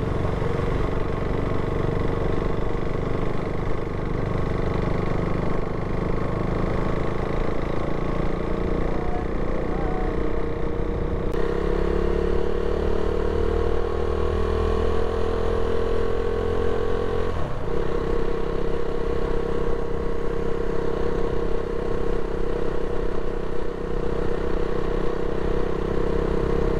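Motorcycle engine running at a steady road speed on a ride. The engine note changes abruptly about eleven seconds in and again around seventeen seconds.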